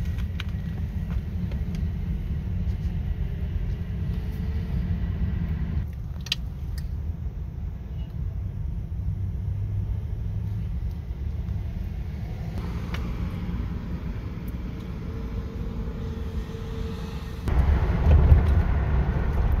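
Low, steady rumble of a car heard from inside its cabin, with a few faint clicks; the rumble gets louder and fuller near the end.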